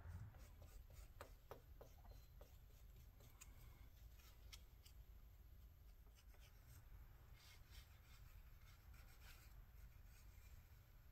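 Faint scratching and scattered light ticks of a glue brush spreading contact cement over leather.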